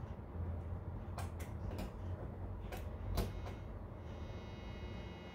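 A steel pick scraping and picking inside the hollow stem of a cut-open M156/M159 sodium-filled exhaust valve, digging the sodium out: scattered light clicks, a few sharper ones in the first three seconds or so.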